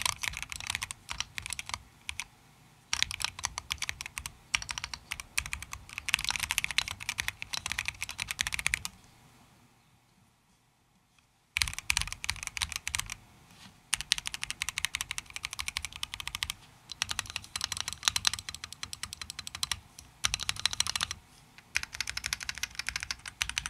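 Typing on a Keychron Q2 Pro mechanical keyboard with K Pro Red linear switches and KSA-profile keycaps: fast runs of key clacks, broken by a pause of about two and a half seconds a little before the middle.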